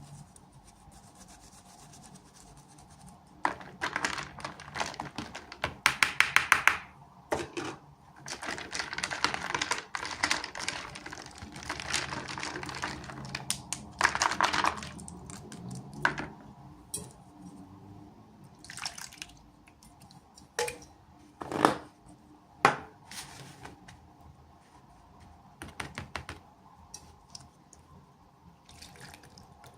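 Small plastic toy pieces and packaging being handled and unboxed: irregular clicks, taps and rustling, with a quick run of sharp clicks about six seconds in.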